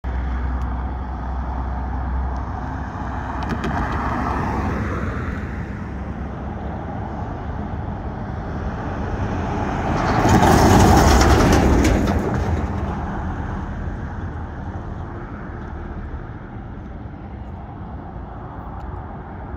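Road traffic crossing a railroad grade crossing: a car goes by about four seconds in, then a semi-truck pulling a dump trailer passes about ten seconds in, its engine and tyres loudest for about two seconds, with knocks and rattles as it rolls over the rails.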